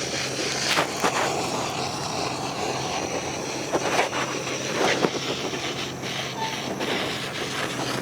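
Small power grinding tool running steadily against a horse's hoof wall, roughing up the outside surface so the shoe glue has something to grip. A constant motor hum with a grinding hiss, and a few brief sharper scrapes.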